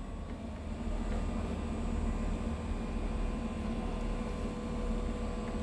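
Steady low rumble with a faint constant hum of a running machine.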